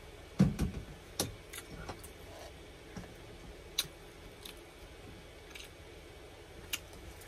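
Close-up mouth sounds of a person chewing a taco: a handful of short clicks and smacks, the loudest about half a second in.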